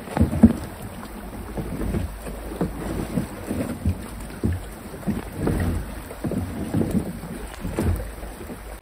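Shallow river water running over stones, with wind on the microphone and repeated low knocks, thumps and splashes as a plastic kayak is pulled through the shallows by someone wading beside it, its hull bumping on the rocky bottom.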